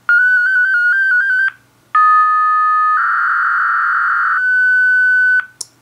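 FLDigi digital-mode CQ transmission played as audio tones from a laptop. It opens with about a second and a half of rapidly stepping tones. After a brief gap come two steady tones, then a dense warbling band of tones, then a single steady tone that cuts off. A sharp click follows near the end.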